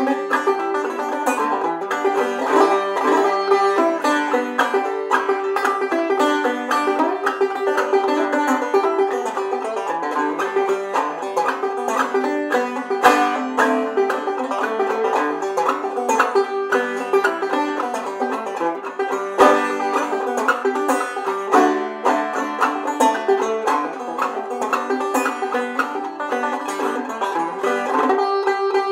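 Five-string banjo played clawhammer style: a steady, unbroken stream of plucked notes in an old-time tune, over a constant high drone note.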